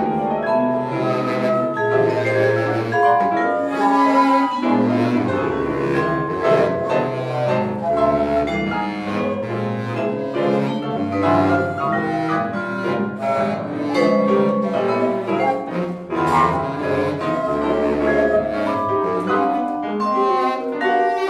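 Contemporary chamber music played live by bass flute, baritone saxophone, mallet percussion and piano: a busy texture of short, scattered notes over low held tones, with sharp mallet strikes here and there.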